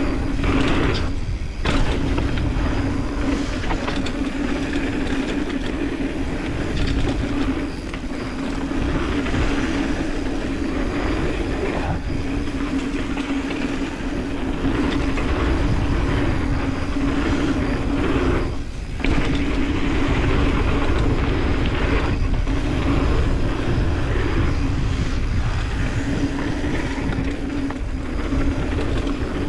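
Mountain bike rolling fast down a dirt trail: knobby tyres on the dirt with a steady drone, the bike rattling, and wind rushing over the camera's microphone. The noise dips briefly twice, near the start and about two-thirds of the way through.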